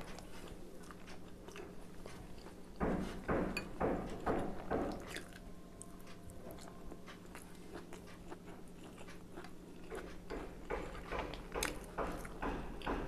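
A person biting and chewing steamed chicken momo: soft wet mouth clicks in clusters, busiest about three to five seconds in and again near the end, quieter in between.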